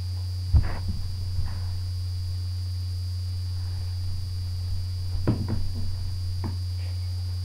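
Steady low hum with a few thumps and knocks from a child moving about on the floor: a sharp one about half a second in, and a small cluster around five to six and a half seconds in.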